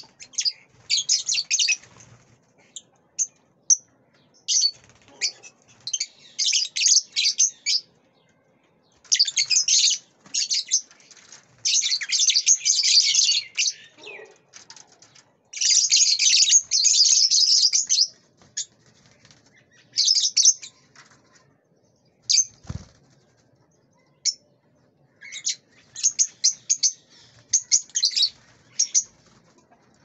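Lovebirds chattering in shrill, high-pitched bursts of a second or two with short gaps between. A single low knock about three-quarters of the way through.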